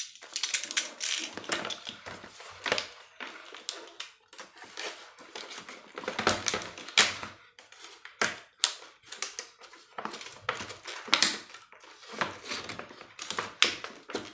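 Clear rigid plastic blister pack being opened by hand: irregular crackles, clicks and snaps of the plastic.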